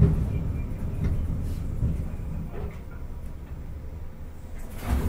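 Sapporo streetcar M100 heard from inside the car: low rumble of wheels on rail and running gear, getting quieter as the tram slows toward its stop, with a sharp clunk just before the end.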